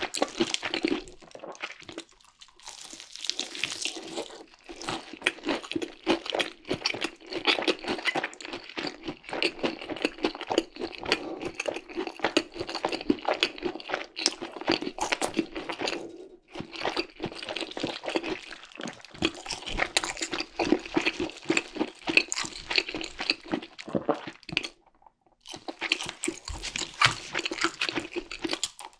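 Close-miked crunching and chewing of crispy fried chicken, a dense run of rapid crackles broken by a few brief pauses.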